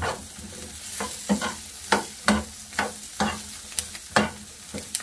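Shishito peppers and dried anchovies sizzling in oil in a frying pan, stirred with a metal spoon that scrapes and knocks against the pan about twice a second.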